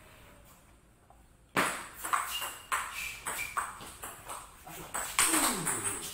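Table tennis rally: the ping-pong ball clicks sharply and irregularly off the bats and the table, starting about a second and a half in. Near the end there is a short falling tone.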